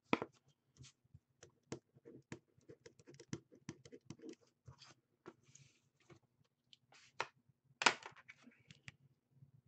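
Pen writing on paper on a wooden desk: a string of small scratches and light clicks, with two sharper knocks, one at the very start and one near the end.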